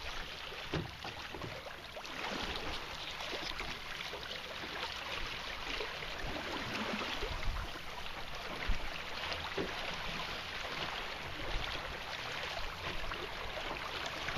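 Small-wave water lapping and trickling against a canoe hull under sail, an even splashy hiss with a few soft low bumps.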